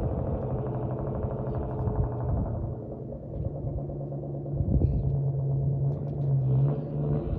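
2004 Ford Mustang Mach 1's 4.6-litre DOHC V8 running steadily, its pitch wavering slightly.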